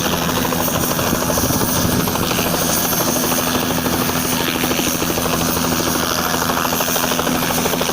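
Helicopter running close by: a steady drone with a fast, even beat from the rotor blades, holding level throughout.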